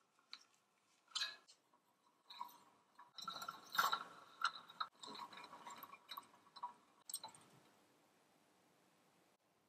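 Rusted gears of an antique clockwork carousel toy turning stiffly, a gritty run of irregular clicks and scrapes from the corroded teeth, busiest in the middle and dying away after about seven seconds: a mechanism seized with rust being freed.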